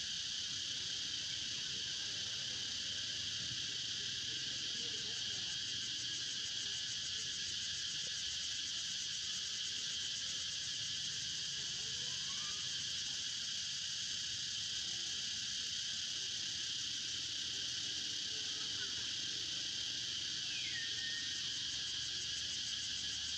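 Steady, high-pitched chorus of insects droning without a break. A single short falling whistle sounds faintly near the end.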